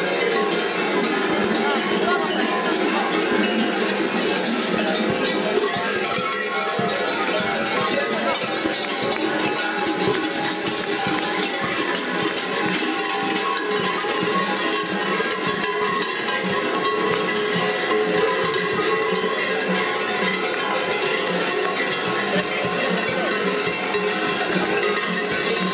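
Many large metal bells worn by kukeri mummers clanging continuously as the dancers jump and sway, a dense unbroken jangle of ringing bells.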